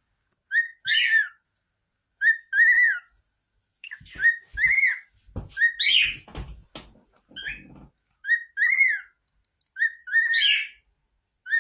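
Cockatiel whistling the same short two-note phrase over and over, a brief note followed by a longer note that rises and falls, about every one and a half to two seconds. Some rustling and knocks come in the middle.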